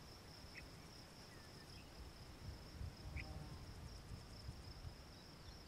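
Faint, steady, high-pitched trilling of insects, over a low rumble of wind on the microphone.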